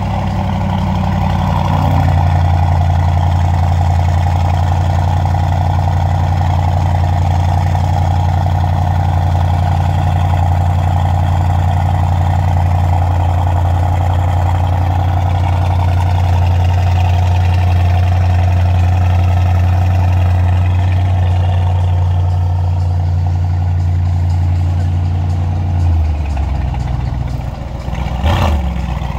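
Aston Martin DBX707's twin-turbo V8 through a Quicksilver exhaust, running at a steady raised idle just after start-up. About 26 seconds in the idle drops to a lower note, and near the end the engine note briefly rises and falls.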